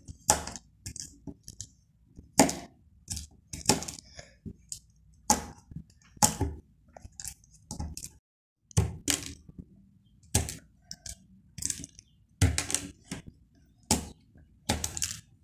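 Origami jumping frogs being pressed down with a fingertip and springing off a tabletop: a series of irregular short, sharp taps and clicks of paper and finger on the hard surface, some in quick pairs.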